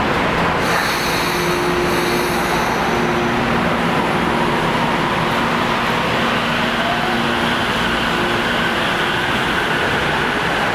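Electric commuter train running through the station: a steady rumble with a low hum, and a motor whine that rises about two-thirds of the way through.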